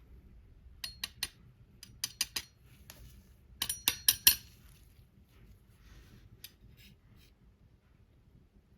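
Sharp clicks and clinks of small hard objects being handled, coming in quick clusters of two to four, loudest about four seconds in, with a few fainter ones near the end.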